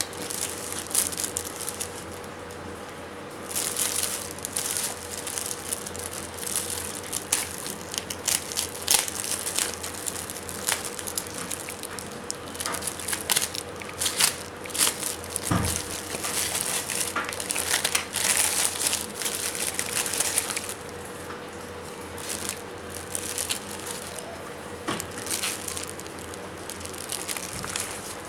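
Product packaging being handled and opened: irregular crinkling, rustling and clicking, louder in bursts, over a faint steady hum.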